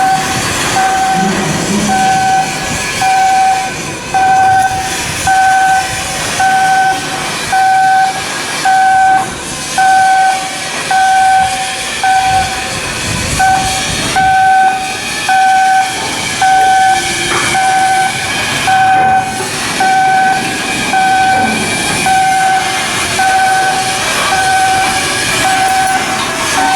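Electronic warning beeper sounding one steady tone in short beeps, about one every 1.2 seconds, over a continuous background of machinery noise and hiss.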